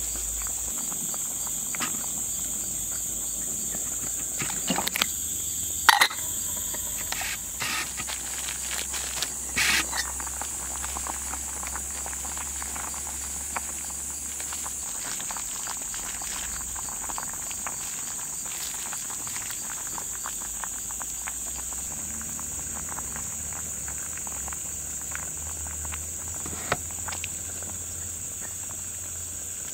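Steady, high-pitched chirring of a forest insect chorus, with a few short knocks and clatters of handled cookware between about five and ten seconds in, the loudest near six seconds.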